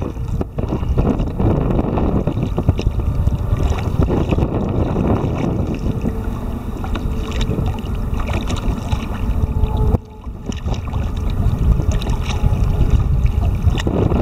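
Wind buffeting the camera's microphone on an open kayak deck: a loud, uneven low rumble, with a brief lull about ten seconds in.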